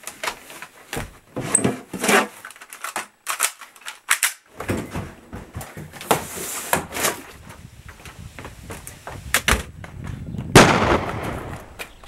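Scattered knocks and clatter, then one loud gunshot about ten and a half seconds in that rings out for about a second.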